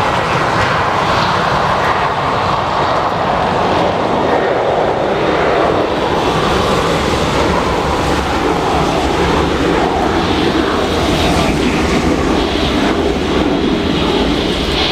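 Jet airliner's engines, a loud, steady rush of noise.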